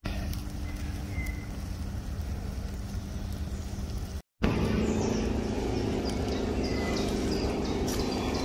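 Outdoor ambience: a steady low hum with faint ticks and two brief high chirps. It breaks off abruptly about four seconds in and resumes slightly louder.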